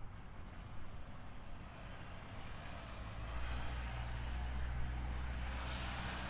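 A road vehicle passing close by: a low engine rumble comes in about halfway through, with tyre hiss that swells near the end.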